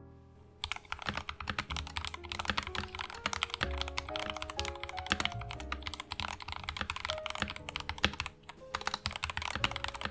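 Fast, continuous typing on a mechanical keyboard fitted with freshly lubed Gateron Yellow linear switches, the keystrokes starting about half a second in, with background music playing underneath.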